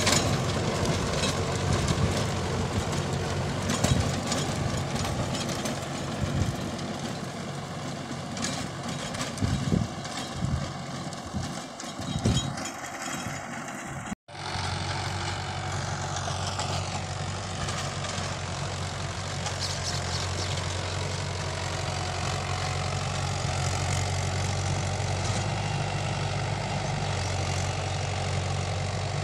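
Mahindra tractor's diesel engine running steadily under load as it drives a rotavator through dry soil. The sound drops out for a moment about halfway through, then the engine continues evenly.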